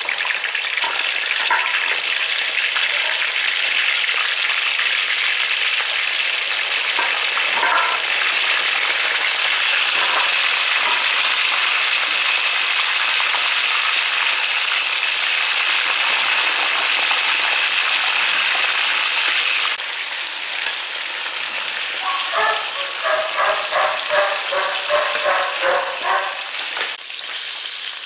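Pork pieces deep-frying in a wok of hot oil: a loud, steady sizzle that eases a little about two-thirds of the way through. Near the end comes a quick run of short scraping knocks as a spatula works against the wok.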